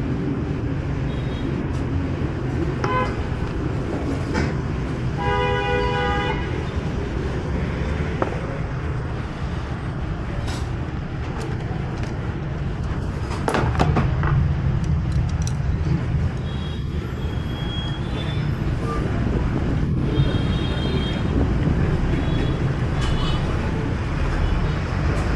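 Steady rumble of street traffic with vehicle horns honking now and then: a held horn note of about a second roughly five seconds in, and several shorter toots later on.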